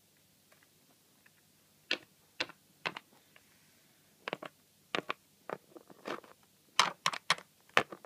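A run of irregular sharp clicks and taps, like small hard objects knocked on a surface. They begin about two seconds in and come faster near the end.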